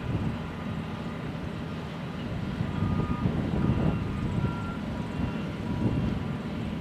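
Low, uneven rumble of engines from heavy equipment and trucks moving around a construction site.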